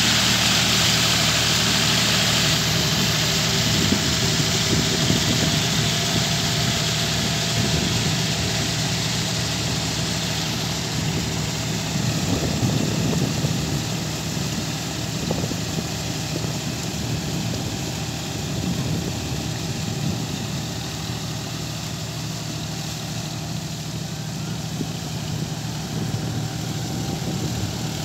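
John Deere 5050D tractor's three-cylinder diesel engine running steadily under load while it drags a rotary tiller through flooded paddy mud. It grows gradually fainter as the tractor moves away, with a brief hiss in the first couple of seconds.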